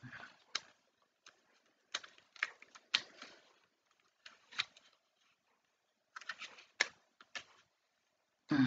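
Tripod head and phone holder being fitted and adjusted by hand: scattered light clicks and taps, some in quick little clusters.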